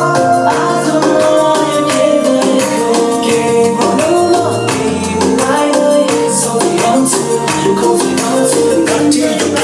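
A song with a steady beat and bass line, played through a Xiaomi Mi Bluetooth speaker.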